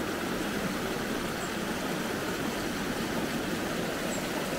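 Muddy rain runoff in a seasonal creek pouring over a small stone weir and cascading down the rocks, a steady rush of water.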